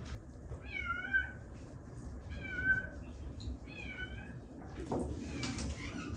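A cat meowing three times, short wavering meows about a second and a half apart.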